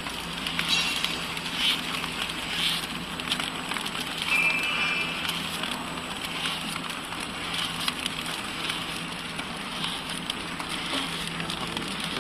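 Pillow-type flow-wrap packing machine running a test wrap: a steady mechanical hum with a rhythmic clack about once a second.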